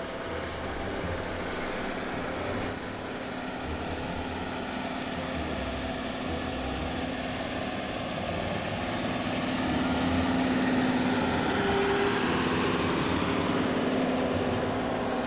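Large four-track farm tractor's diesel engine running steadily as it pulls a wide tillage implement across a dry field, growing louder from about nine seconds in as it passes close by.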